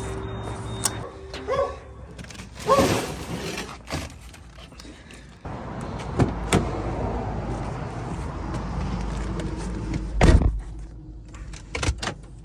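Handling a Toyota SUV at the pump: fuel cap and fuel door being closed with small clicks, the door handle clicking open, then the driver's door thudding shut about ten seconds in.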